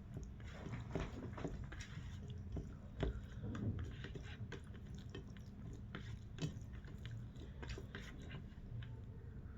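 Close-miked chewing and mouth sounds of a person eating: irregular soft clicks, smacks and bites.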